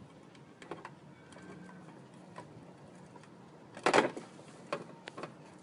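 A pet turtle falls from high on its aquarium wall, and its shell lands with one loud knock about four seconds in, followed by two lighter knocks. A few faint clicks come before it.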